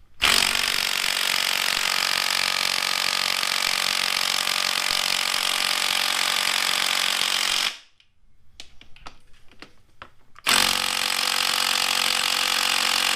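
Power impact driver running in two long bursts, about seven seconds and then three, with a short pause between, on a bolt that will not turn: the bolt is taken for stripped.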